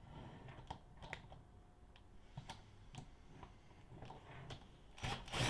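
Scattered light clicks and taps of hand tools and machine parts being handled during disassembly, with a louder scrape about five seconds in.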